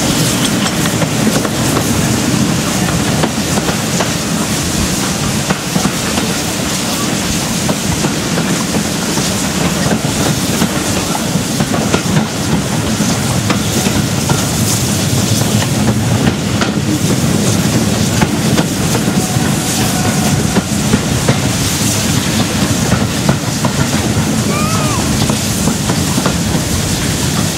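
A train headed by four Austerity saddle-tank steam locomotives working hard, heard from an open carriage window: a dense, steady mass of exhaust noise with the carriage wheels clattering over the rail joints.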